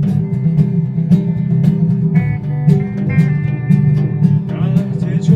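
Band music: acoustic guitar over a pulsing bass line and a steady drum beat, with a few held higher notes in the middle. A voice comes in near the end.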